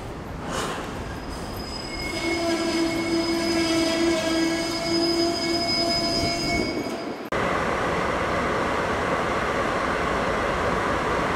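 Freight train rolling past with its wheels squealing on the rails, a steady high squeal of several pitches held for about five seconds. About seven seconds in it cuts off abruptly to a loud, even rushing noise.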